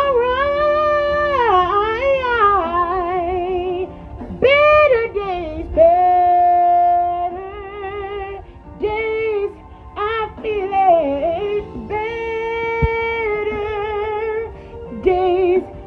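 A woman singing a slow gospel-style line, drawing syllables out over long held notes with wide vibrato and sliding runs between pitches, with short breaths in between.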